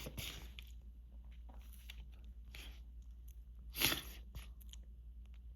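A person's quiet breathing between allergy sneezes, with small scattered clicks and one short, sharp noisy breath about four seconds in.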